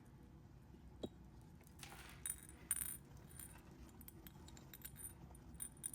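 Faint clinks and light handling noise of small gold-plated enameled metal charms being turned over, with single light taps about a second in, a couple more around two to three seconds in, and a few near the end.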